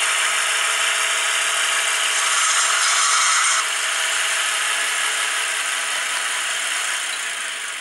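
H0-scale model diesel shunting locomotive running along the track: a steady whirring rattle that drops a step about three and a half seconds in and fades near the end.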